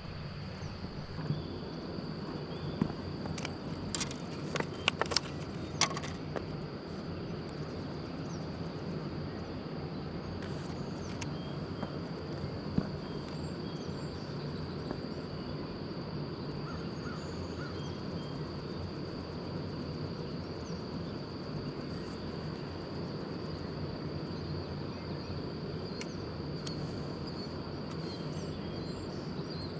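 Insect chorus with a steady high trill over a steady low rushing noise, with a handful of sharp clicks a few seconds in.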